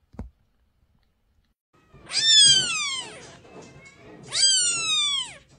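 Very young kitten meowing twice: two loud, high-pitched cries about a second long, each sliding down in pitch, the first about two seconds in. A brief faint click comes just before them.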